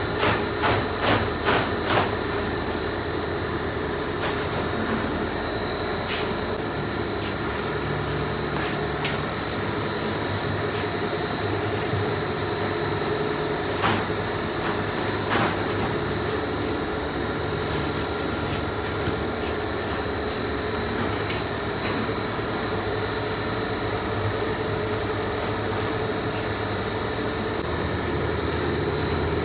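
Machinery in a uPVC pipe factory running steadily with a constant high whine. A fast clacking of about three strokes a second stops about two seconds in, and two sharp knocks come about fourteen and fifteen seconds in.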